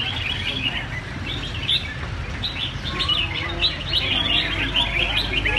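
Several caged red-whiskered bulbuls singing and chirping, with quick overlapping phrases from more than one bird.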